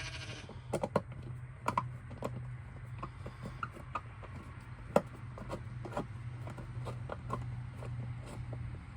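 Irregular clicks and taps of hand work fitting a protective cover over a freshly rewired outdoor power outlet, with one sharper tap about five seconds in. A steady low hum runs underneath.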